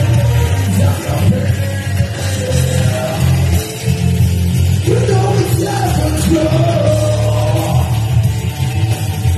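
Live rock music: a band playing with a singer's voice over a heavy bass line.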